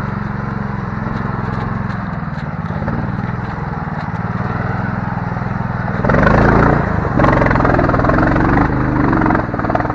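Small engine of a homemade karakat all-terrain vehicle running under way, getting louder and rougher about six seconds in as it is throttled up, then easing off near the end.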